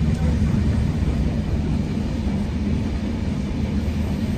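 Heritage passenger train heard from inside a carriage while running along the track: a steady low rumble of wheels and running gear at an even level.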